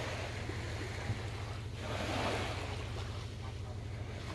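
Sea water lapping and washing gently, swelling about two seconds in, over a steady low hum.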